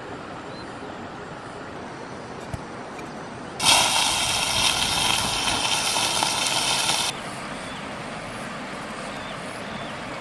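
Stream water rushing steadily. About three and a half seconds in, a loud sizzle starts as ingredients hit hot oil in a pan over a wood fire and the flames flare up. The sizzle stops abruptly about three seconds later, leaving a softer steady hiss.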